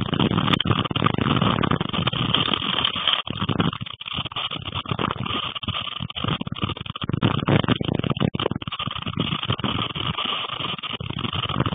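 Gusting storm wind with rain beating against the window: a loud, rough, uneven rush that keeps surging and dipping.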